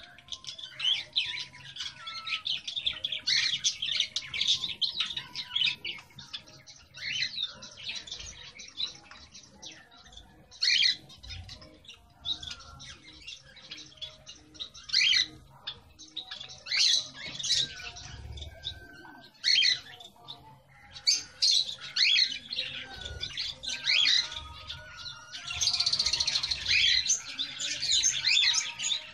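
Caged pet birds chirping and tweeting: many short high calls overlapping, with the busiest stretch near the end.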